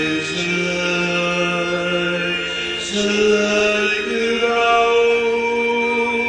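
Slow music of long held chant-like vocal notes, moving up to a higher chord and getting a little louder about three seconds in.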